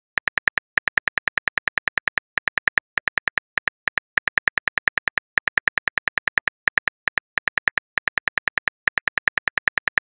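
Phone keyboard typing sound effect from a texting-story app: a rapid run of short, evenly spaced clicks, one per letter typed, about eight a second with brief gaps between groups.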